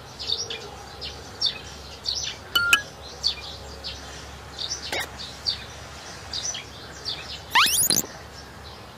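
Small birds chirping: short, high calls scattered throughout, with a louder rising call near the end.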